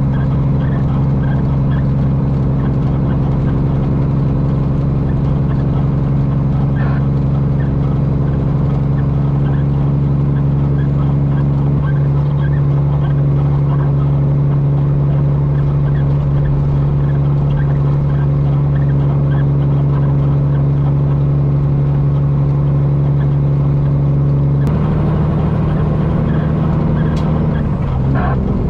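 Semi truck's straight-piped Cummins diesel running at a steady cruise. Its note drops a little about 25 seconds in and again near the end.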